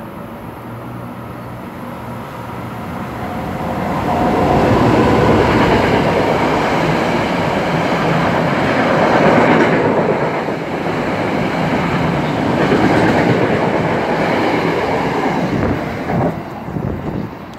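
Passenger train passing close by the platform. Its noise builds over a few seconds, stays loud for about ten seconds, then falls away near the end.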